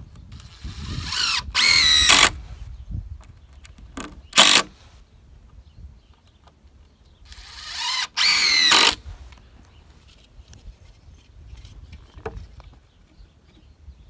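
Cordless drill driving 3-inch screws into rough-sawn pine 2x6 boards laminated on a barn post. There are three runs: a long one about half a second in, a short one around four seconds, and another near eight seconds. Each time the motor whine rises in pitch as it spins up, then holds.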